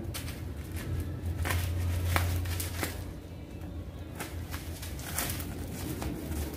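Scissors snipping and plastic bubble wrap crinkling as the wrap is cut away from a fishing rod, in short irregular clicks and rustles. A steady low hum runs underneath, strongest in the first half.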